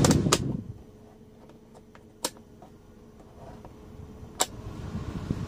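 Rear AC blower of a Toyota Grand New Avanza, running again after a new blower resistor: its rushing airflow dies away within the first second. The fan-speed switch clicks a few times, and the airflow builds up again near the end.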